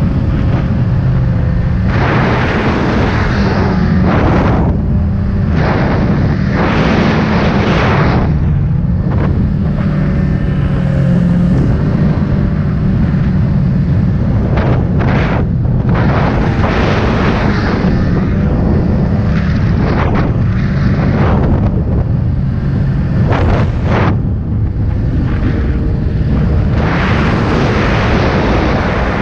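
Snowmobile engine running steadily at speed, with repeated surges of rushing noise from wind and snow spray across the microphone.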